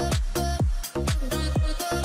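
Electronic dance music with a steady kick-drum beat and hi-hats.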